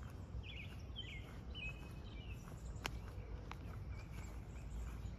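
Outdoor ambience: a low steady rumble of background noise, with a small bird chirping a short run of quick notes in the first half and a single sharp click a little past the middle.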